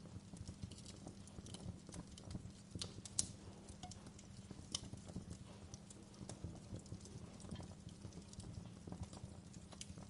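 Campfire burning: a steady low rumble with frequent irregular crackles and pops, one sharper pop about three seconds in.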